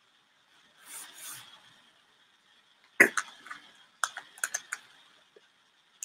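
A faint soft rustle, then a sharp knock about three seconds in, followed by a quick run of light clicks.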